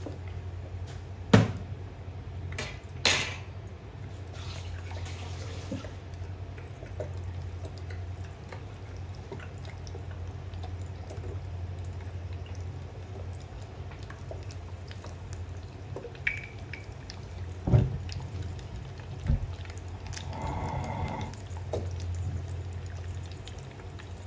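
An egg deep-frying in hot oil in a small pan: a steady soft sizzle broken by a few sharp pops of spattering oil, the loudest about a second and a half in, near three seconds and around eighteen seconds.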